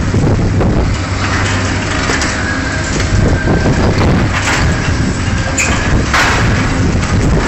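Liebherr 944 demolition excavator at work on a steel girder: a steady machine hum under continuous crunching and scraping of steel and debris, with a few sharp knocks between about four and a half and six seconds in.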